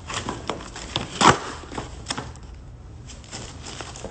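A cardboard package being handled and opened by gloved hands: scattered light taps and knocks, with one louder, longer scrape about a second in, then quieter.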